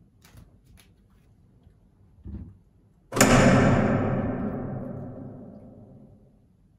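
A soft knock, then about three seconds in a single loud percussion hit that rings out and fades away over about three seconds, a dramatic stinger timed to a round-number title.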